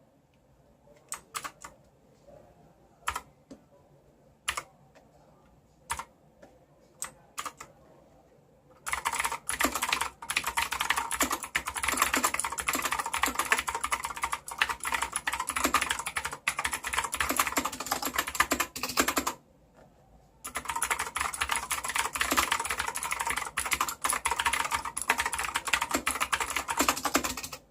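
Rantopad MXX mechanical keyboard with clicky Gateron Blue switches being typed on. It starts with single keystrokes about a second apart, then goes into fast continuous typing, with a brief pause about two-thirds of the way through before the typing resumes.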